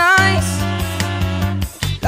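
A young male singer's voice through a handheld microphone, holding a sung note that ends about half a second in, over a pop-soul backing track with a steady bass line and beat.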